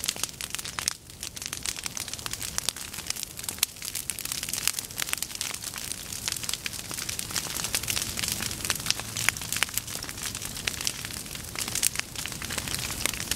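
Prescribed prairie fire burning through dry, dead goldenrod and other tall forbs: a dense, rapid crackling and popping of burning stems.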